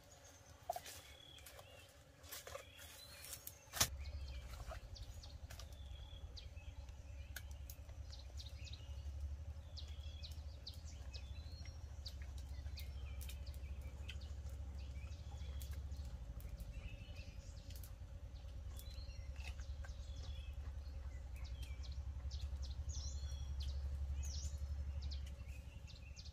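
Forest birds chirping on and off over a steady low rumble that starts suddenly about four seconds in and cuts off near the end. A few sharp clicks come in the first few seconds.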